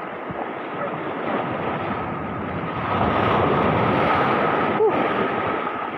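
Small waves surging in and breaking over shoreline rocks, a continuous wash of surf that swells louder about halfway through.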